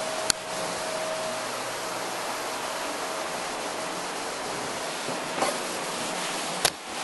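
Steady background hiss, with a sharp click shortly after the start and a few handling bumps near the end as the camera is picked up and carried.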